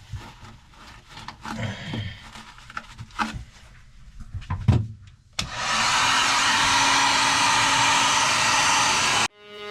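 A few scattered knocks and clatter, then about five seconds in a wet/dry shop vacuum starts and runs steadily, pulling leaked water out of the boat's hull, until it cuts off abruptly near the end.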